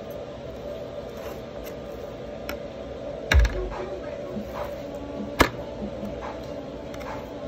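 Knife and raw beef tenderloin being handled on a sheet pan: light scattered clicks and taps, a heavy thump about three seconds in and a sharp click about two seconds later, over a steady background hum.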